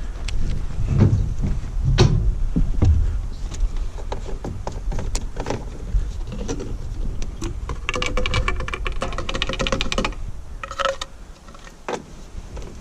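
Scattered clicks, taps and knocks of hands handling a fuel container and small engine parts while refuelling, with a denser rattle for about two seconds near two-thirds of the way through.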